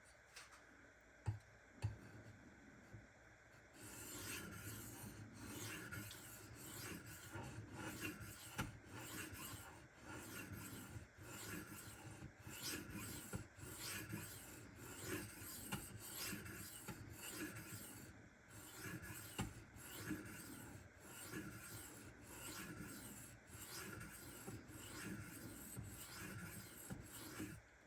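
A knife's 154CM steel blade being stroked back and forth across a Shapton Kuromaku 1500-grit whetstone, a long run of repeated scraping strokes starting about four seconds in. A couple of light clicks come before the strokes begin.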